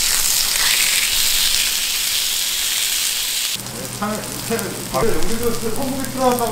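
Pork belly strips sizzling on a tabletop grill plate, an even hiss that cuts off suddenly about three and a half seconds in. Voices follow.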